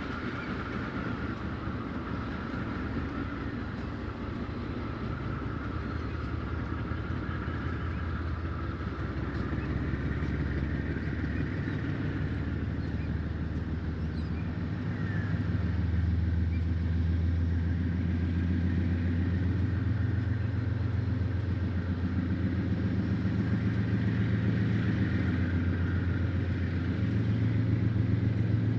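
Diesel-electric freight locomotives' engines throbbing as they power up to move off, the engine note stepping up several times and growing louder as they notch up.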